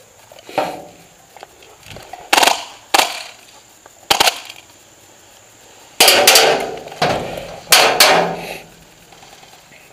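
Airsoft gunfire: sharp cracks and knocks spaced irregularly, a few single shots followed by a denser run of them about six seconds in.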